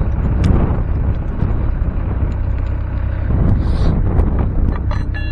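CAT 308C excavator's diesel engine running steadily, with a few faint ticks over it.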